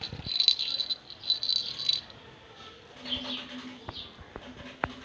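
A plastic cat toy ball rattling and jingling as a kitten bats it, for about the first two seconds. Birds chirp after that, with a couple of sharp clicks near the end.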